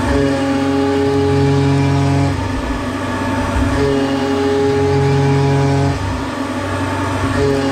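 Tormach 770M CNC mill cutting 6061 aluminium with an end mill, roughing out a pocket: a steady spindle-and-cutting whine whose pitch steps up and down every second or two as the cut changes.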